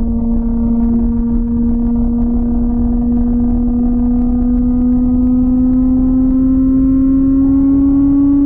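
2004 Honda CBR1000RR Fireblade's inline-four through a Jardine titanium aftermarket exhaust, running steadily at cruise with its note rising slowly as the bike gently gains speed. A low rush of wind and road noise sits underneath.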